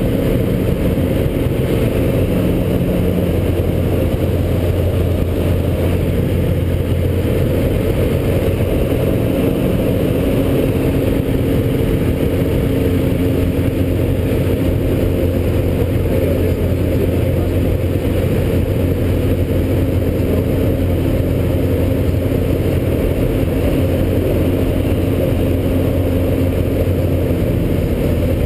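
Tipsy Nipper light aircraft's engine and propeller droning steadily in cruise flight, heard from the cockpit. Its note shifts slightly about three seconds in and again around nine seconds.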